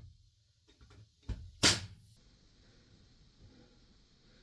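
Two sharp knocks about a second and a half in, a light one followed closely by a loud one, each dying away quickly.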